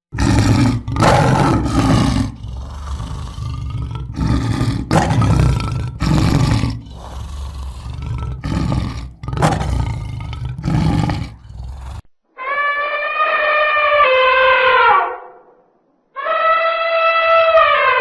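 A lion roaring in a series of repeated roars. About twelve seconds in, elephants trumpet twice: two long horn-like calls, each dropping in pitch at the end.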